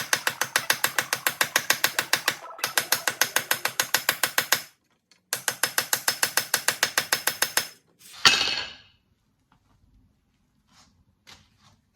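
Small hammer peening a steel nail rivet through stacked steel pommel plates: quick light metal-on-metal blows at about five a second, each ringing, in three runs with short pauses, then one louder ringing blow about eight seconds in.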